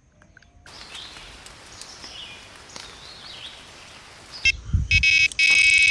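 Outdoor background with a few bird chirps, then about four and a half seconds in an electronic carp-fishing bite alarm starts sounding a loud, continuous high beep, signalling a bite. A few dull thumps come as it begins.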